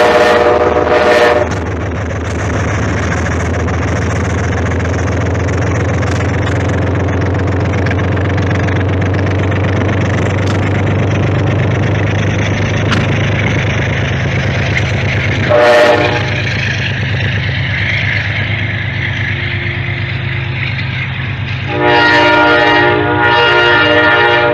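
Amtrak GE Genesis P32AC-DM diesel locomotive passing with its train of passenger cars: the diesel engine runs steadily under the wheel and rail noise. Its chime horn sounds a blast at the start, a short toot about two-thirds of the way through, and two longer blasts near the end.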